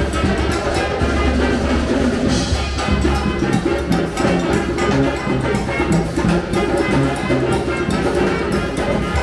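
Live brass band playing: a tuba bass line under trumpet, with a drum kit keeping a steady beat.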